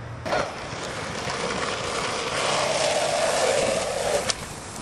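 A short knock, then skateboard wheels rolling on rough asphalt, growing louder as the rider approaches, before the sound stops abruptly near the end.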